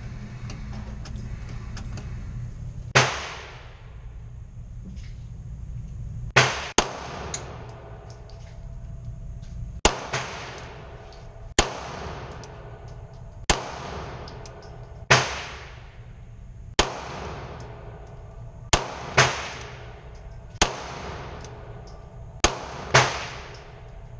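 Beretta 92FS 9mm pistol fired one shot at a time, about thirteen shots in all, spaced every couple of seconds with a few quick doubles, each crack trailing off in a short echo.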